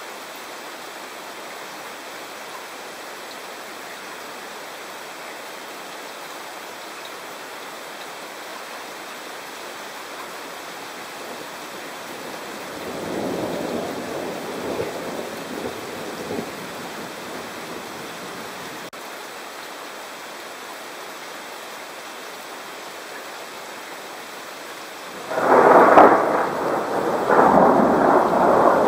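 Thunder over a steady hiss of rain: a rumble rolls through about halfway in. A much louder peal begins suddenly near the end and keeps rumbling.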